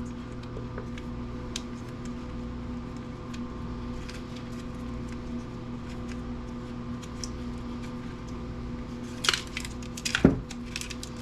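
Small parts of a planer's motor being handled and pulled apart: faint scattered clicks, then a few louder clatters about nine and ten seconds in, over a steady low hum.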